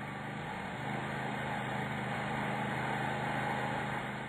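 Fogtec fog gun spraying fine water fog at high pressure: a steady hiss over a low, steady hum.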